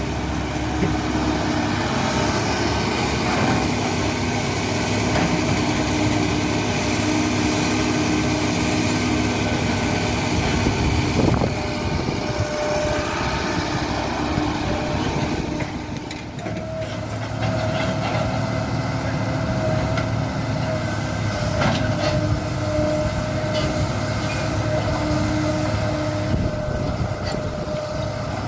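Kobelco SK75 excavator's diesel engine running under load with a hydraulic whine that rises and falls as it digs, with a few knocks of the bucket working the ground.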